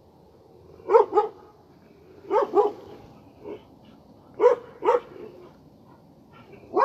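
Stray dog barking: short barks mostly in pairs, a pair about every second and a half, with a fainter single bark between them.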